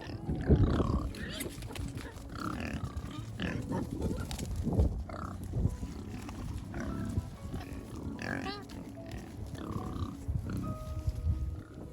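Pigs grunting in irregular bursts, with background music underneath.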